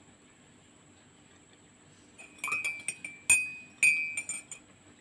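A metal spoon stirring a drink in a ceramic mug, clinking against the sides with a ringing tone. The clinks come in a quick run from about two seconds in, the loudest two near the middle.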